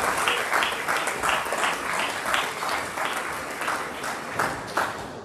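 Audience applauding, with many overlapping claps that ease off near the end and stop.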